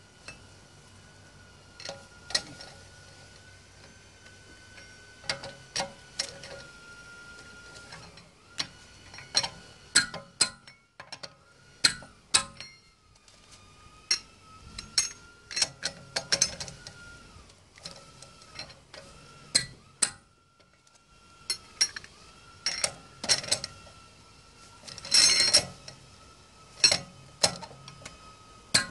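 A steel four-way cross wheel wrench turning and tightening a car's wheel bolts, making irregular sharp metallic clinks and clicks, with a dense run of rattling clinks about 25 seconds in.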